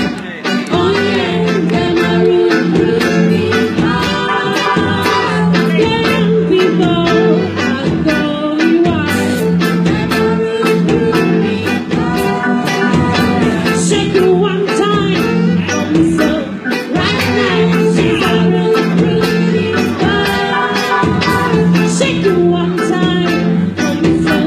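A band playing a song live, with a lead singer over bass, guitar and a steady drum beat.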